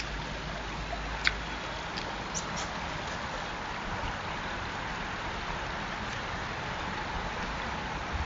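Distant train rumbling through the valley: a steady rushing noise with a low rumble beneath, and a few faint clicks in the first few seconds.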